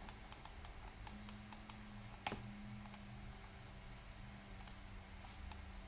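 Faint, irregular clicks of a computer keyboard and mouse, a few a second, with one sharper click a little over two seconds in, over a faint steady hum.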